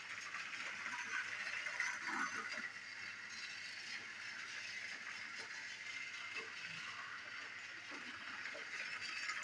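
Battery-powered toy train running along plastic track, its small motor and gears whirring steadily, with a few light clicks.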